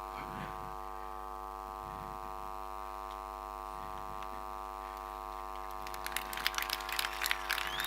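Steady electrical mains hum, with a dense run of sharp crackling clicks starting about six seconds in and growing louder.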